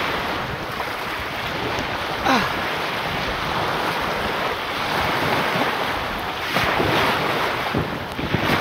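Surf washing up on a sandy beach, with wind buffeting the microphone; a short sharp sound stands out about two seconds in.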